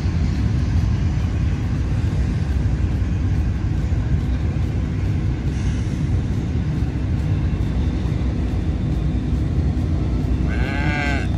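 Steady low rumble throughout, and about a second before the end a cow moos once.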